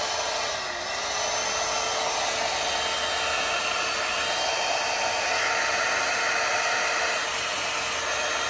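Hot air brush running: its fan blowing steadily with a motor whine whose pitch dips briefly about a second in.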